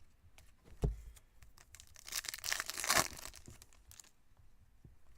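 Foil trading-card pack wrapper crinkling as it is torn open, loudest about two to three seconds in. A single dull thump comes about a second in.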